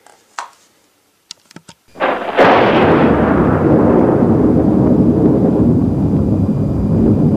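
A few faint clicks, then a loud low rumble like thunder that starts suddenly about two seconds in and rolls on without a break.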